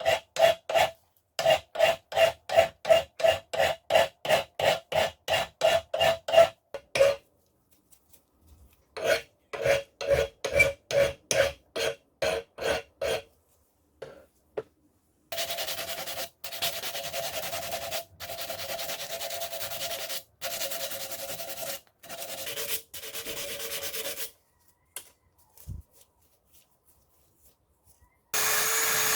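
Hand file rasping on a steel cold chisel in quick back-and-forth strokes, about three a second, in two runs with a pause between. A steadier continuous rasp with short breaks follows, and near the end a power tool starts up and runs steadily.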